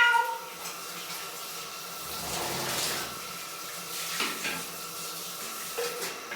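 Water running from a tap and splashing, with the tail of a cat's meow falling off at the very start.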